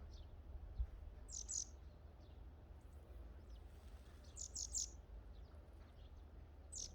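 Small birds chirping in short, high calls that come in little clusters: about a second and a half in, near five seconds, and again near the end. A faint, steady low rumble lies underneath.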